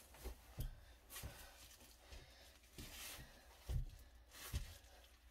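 Soft footsteps and shifting weight on a wooden floor as a person turns in place. There are several light thumps, the loudest a little under four seconds in and again about a second later, with faint rustling between them.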